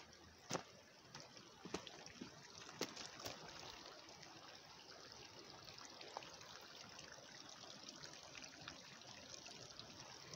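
Faint, steady trickle of running water, with a few scattered footstep clicks on stone in the first three seconds.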